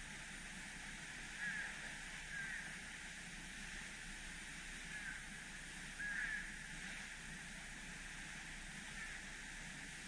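A steady rush of flowing water, with short high bird calls breaking through about five times.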